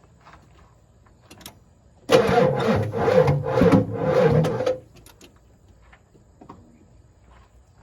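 Starter cranking a Ford 7.3 IDI diesel engine for about two and a half seconds with a steady, even pulse, then stopping without the engine catching: a hard start, put down to old, weak batteries.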